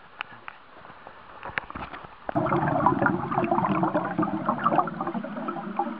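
Light splashes and ticks of pool water at the surface. About two seconds in, a sudden loud bubbling, churning rush of water sets in, heard through the submerged camera, from a freestyle swimmer's strokes close by. It eases slightly near the end.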